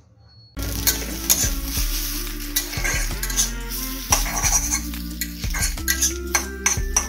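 Metal spatula stirring and scraping chow mein noodles in an iron kadai, with the oil sizzling and many quick clicks of the spatula against the pan, starting suddenly about half a second in. The leftover noodles are being reheated in the oil.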